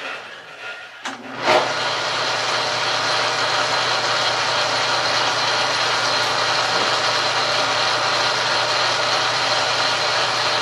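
Logan metal lathe starting up with a click and a sharp knock about a second and a half in, then running steadily with a low hum.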